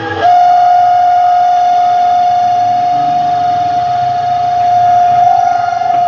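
Washing machine spin dryer spinning with a loud, steady, high-pitched squeal that cuts in suddenly just after the start and holds with little change. Brake and seal have been checked and found fine; the repairman puts it down to a very dry bushing where the spin basket's shaft turns.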